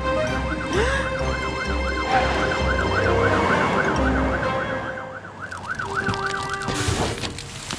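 Cartoon fire-truck siren wailing in fast up-and-down sweeps, about four a second, stopping near the end. A low rumble runs under it until about halfway.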